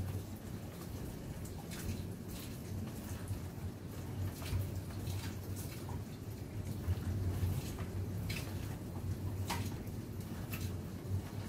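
Rainy-day ambience: a steady low rumble with scattered light drips and ticks.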